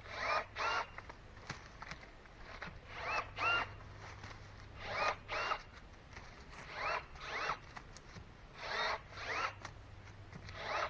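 Milwaukee M12 cordless pruning shears running on a fully charged battery. The motor drives the blade through about five cycles a couple of seconds apart, each a rising whir followed by a shorter second whir, and another cycle starts near the end.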